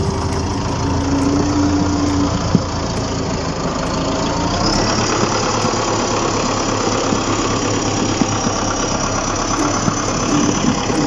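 A vehicle engine running steadily at idle, most likely a truck-engine sound effect added for the toy dump truck.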